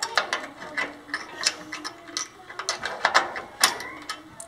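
Small steel parts (a roller bracket, bolt and nut) clicking and clinking irregularly as they are handled and fitted together by hand.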